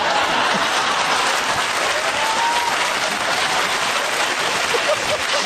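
Studio audience applauding, a steady loud wash of clapping.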